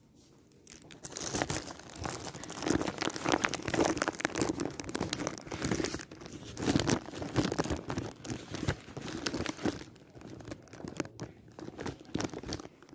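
Rustling and rubbing of clothing and hand handling close against a phone's microphone, with many small crackles, dense from about a second in and easing off near the end.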